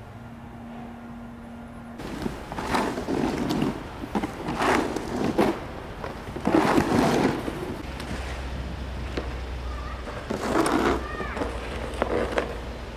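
A snow shovel scraping across a snowy road surface in about four separate strokes, each lasting about a second. Short chirps, likely small birds, come in near the end.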